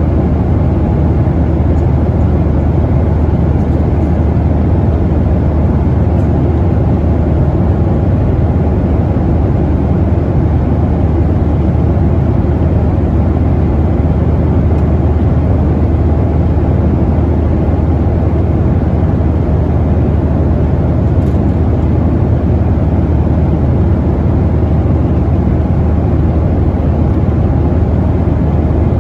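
Steady cabin noise of a Boeing 737-900ER in flight: an even, low rumble of its CFM56-7B turbofan engines and airflow, heard from inside the passenger cabin.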